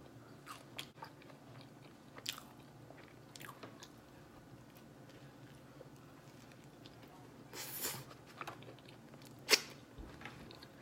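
A person chewing and biting into a sandwich close to the microphone: soft mouth smacks and small crunches. There is a louder noisy burst about eight seconds in and a sharp click a second or so later.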